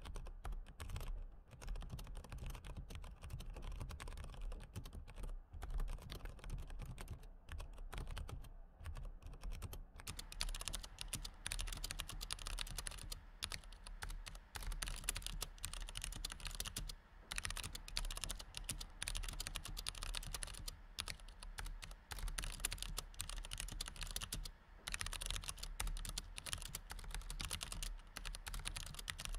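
Continuous typing on a low-profile chiclet-style computer keyboard: a dense, irregular run of key clicks with only brief gaps. The clicks turn crisper from about ten seconds in.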